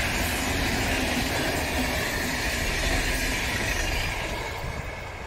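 Iarnród Éireann locomotive-hauled passenger train's coaches rolling past on the track, the steady rumble of wheels on rail, fading about four seconds in as the train pulls away.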